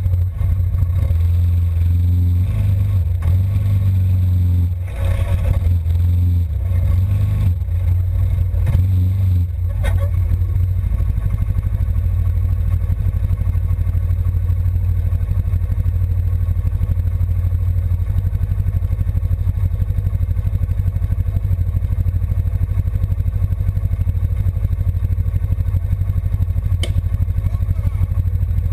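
ATV engine running, its speed rising and falling over the first ten seconds or so, then holding at a steady, fast-pulsing drone.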